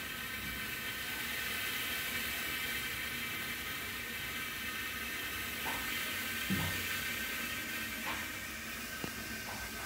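Steady hiss of nitrogen gas blowing through an air-conditioner outdoor unit's copper piping, a purge that pushes R141b flushing solvent and burnt-compressor residue out into a plastic bottle. A few light knocks, the loudest a dull thump about six and a half seconds in.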